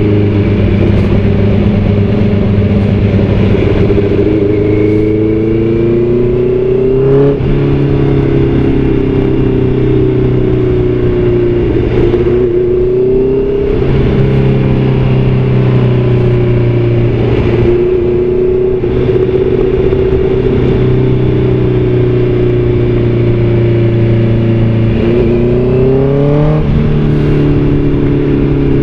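Motorcycle engine running on the move, its note rising and falling with the throttle, with sudden shifts in pitch about seven seconds in and again near the end.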